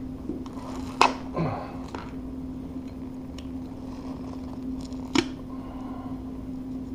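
Metal knife blade prying and scraping under a stuck-down vinyl floor plank, with two sharp clicks, about a second in and again near the end, and softer scraping between. A steady low hum runs underneath.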